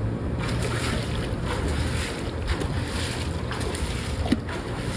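Wind buffeting the microphone: a steady low rumble under a hiss of outdoor noise.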